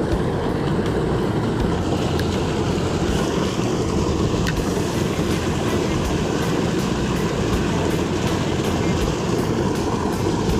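Water pouring out of a corrugated culvert pipe and churning into a creek pool: a steady, heavy rush of water. The pipe is running high after heavy rain.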